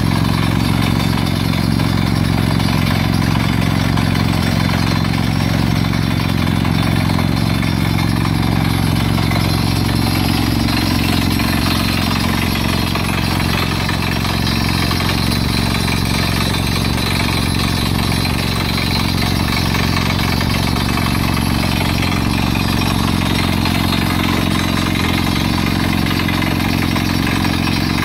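FYX180 crawler water well drilling rig running steadily while drilling: its diesel engine runs under load, mixed with the hiss of compressed air blowing rock dust out of the hole.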